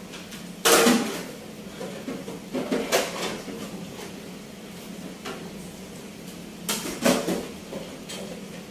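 A few sharp knocks and clatters, the loudest about a second in and two more close together near 7 seconds, over a steady low hum.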